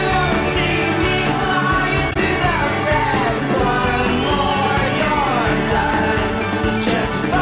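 Background music: a song with a singing voice, continuing without a break.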